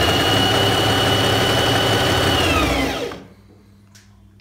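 Singer Heavy Duty 4423 sewing machine running at full speed: a steady whine from the motor and needle drive, which winds down and stops about three seconds in.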